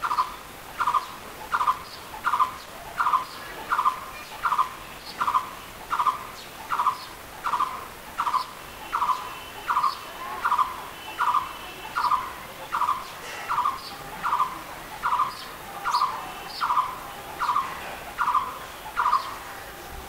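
Blue-throated barbet calling: a long, steady series of short, evenly spaced notes, about three every two seconds, stopping near the end.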